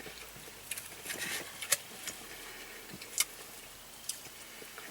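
Eating sounds close to the microphone: soft chewing and handling of food, with two sharp mouth clicks about a second and a half apart.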